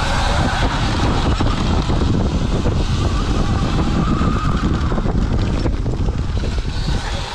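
Wind rumbling on the microphone and knobby tyres rolling over a dirt trail on a riding Sur-Ron electric dirt bike, under a faint electric-motor whine that shifts up and down in pitch.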